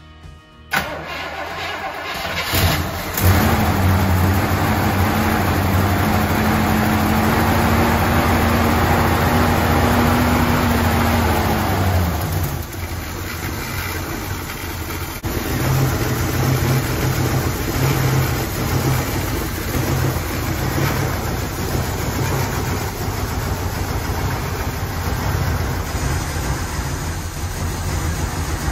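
1979 Pontiac Firebird's carbureted V8 cold-started on a freshly fitted distributor and new MSD spark plug wires. It cranks and catches within about three seconds, then holds a fast idle that climbs slightly. About twelve seconds in it drops to a lower, steady idle.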